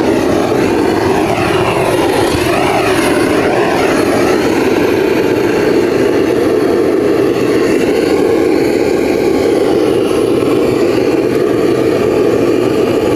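Handheld butane torch flame blowing steadily, a loud, even rushing noise, used to light firewood in a fire pit.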